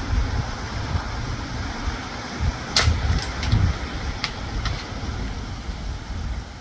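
A single sharp crack from a .22 PCP air rifle shot at an iguana about 10 yards away, followed by a few fainter clicks over the next two seconds as the pellet strikes and the hit iguana shifts in the branches. A low rumble runs underneath.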